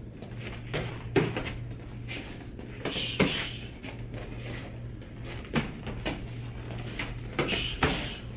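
Boxing gloves thudding against the partner's gloves and arms as punches are thrown and blocked in a back-and-forth jab combination drill, with shoes stepping and scuffing on the mat. The hits come irregularly, about eight sharp thuds.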